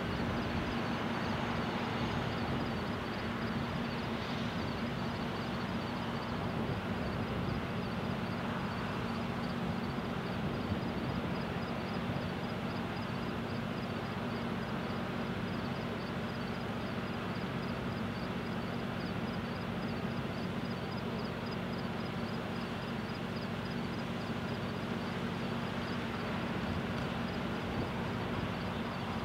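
Steady outdoor ambience: a continuous low machinery hum under a fast, even, high-pitched pulsing that does not change.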